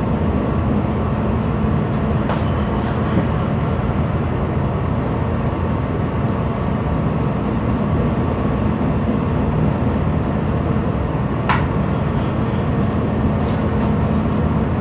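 Steady low drone of a ship's machinery with a constant rushing noise, broken by two short sharp clicks, one about two seconds in and one about eleven seconds in.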